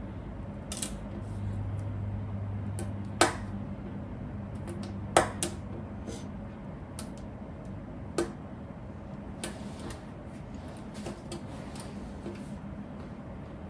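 Plastic Lego pieces being handled and snapped together: a scattered string of sharp clicks and taps, the loudest about three and five seconds in, over a steady low hum.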